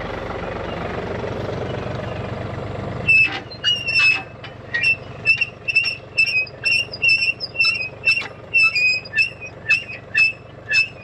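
Tractor engine running steadily, then about three seconds in a hay tedder starts up with a loud, high-pitched squeal that repeats about two to three times a second as its rotors turn.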